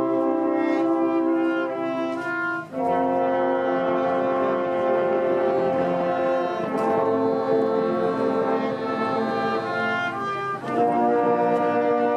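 Background music of slow, held chords, changing about two and a half seconds in and again near the end.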